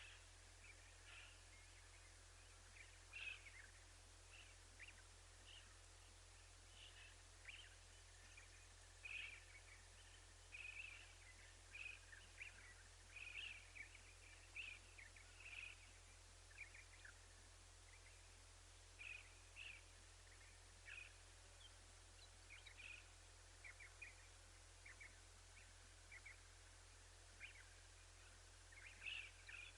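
Birds chirping: many short, faint calls scattered throughout, over a steady background hiss.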